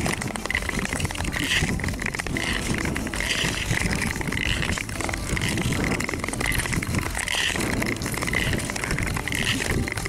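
Ice skate blades gliding and scraping over clear lake ice, a hiss that swells with each stroke about once a second, with wind rumbling on the microphone.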